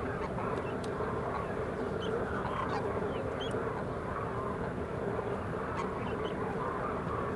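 A large flock of demoiselle cranes calling together: many overlapping calls merging into a steady din.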